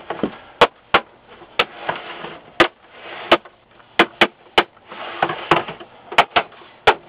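Plastic front bezel of a Samsung 214T LCD monitor being pried off by hand: about a dozen sharp, irregular snaps and clicks as the case separates, with plastic scraping in between.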